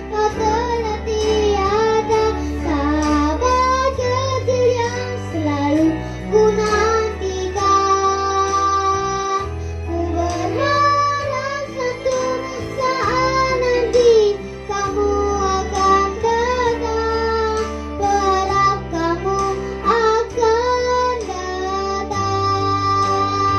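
A voice singing an Indonesian pop song over a backing track with guitar and bass.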